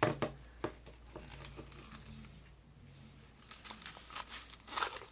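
Small plastic toy cauldron being handled and worked open: a few sharp plastic clicks in the first second, then light rustling and tapping, busier near the end.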